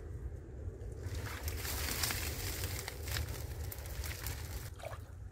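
Water splashing and dry reeds crackling as hands work at the waterline, a rough noise with many small crackles from about a second in that fades near the end, over a steady low rumble.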